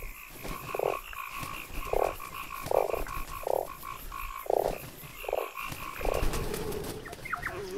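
A frog croaking seven times, each a short, low, rattling croak about a second apart, over a steady high-pitched trilling chorus.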